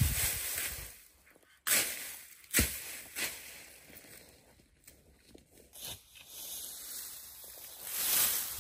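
Dry reed and grass stalks rustling as they are tossed and pressed onto a heap, in several short separate bursts with a longer swell near the end.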